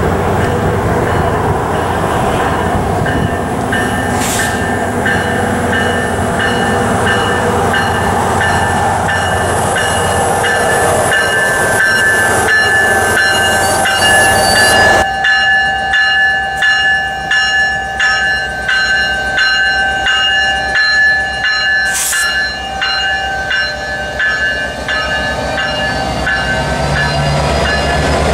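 New Jersey Transit diesel commuter train pulling into a station platform and rolling past close by. In the second half, ringing tones recur in a steady rhythm, as from the locomotive's bell.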